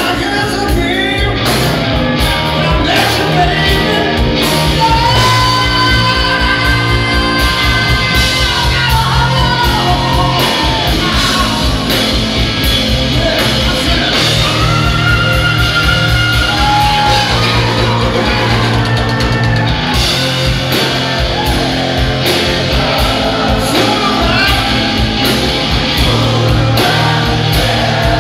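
Live rock band playing loudly: a man sings over distorted electric guitar, electric bass and drums with a steady driving beat.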